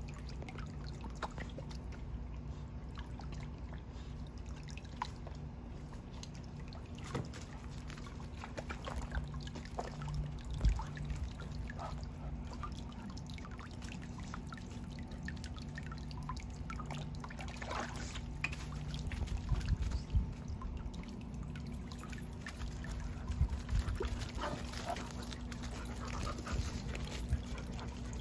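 Water trickling and pouring from a garden hose into a plastic kiddie pool, with irregular splashes as a dog dips its muzzle into the water. A steady low hum runs underneath.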